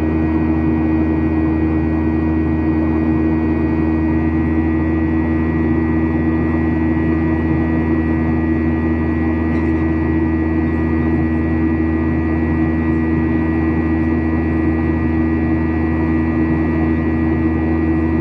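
Boeing 737-900ER's CFM56-7B turbofan engines running steadily in flight, heard inside the cabin as a constant drone with a few steady humming tones over an even rush of air.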